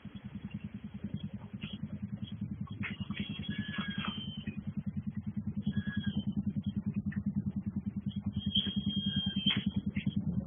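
A small engine running steadily with an even, rapid pulse, like a motorcycle idling. A few short high-pitched chirps or squeals sound over it, at about three to four seconds and again near nine seconds.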